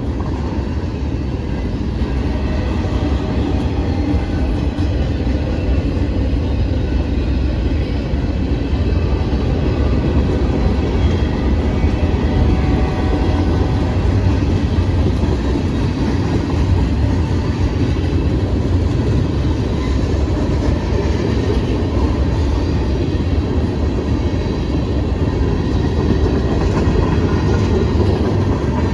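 Norfolk Southern freight train rolling past, its cars making a steady, loud rumble on the rails.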